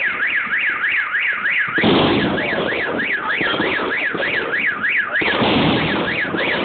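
A car alarm wailing, its pitch sweeping up and down about three times a second, over a steady background of exploding fireworks. Two sudden loud firework bursts break through, about two seconds in and again about five seconds in.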